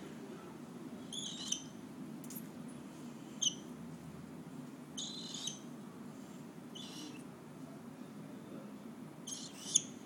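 Lutino cockatiel giving about half a dozen short, soft, high chirps at irregular intervals, over a steady low hum.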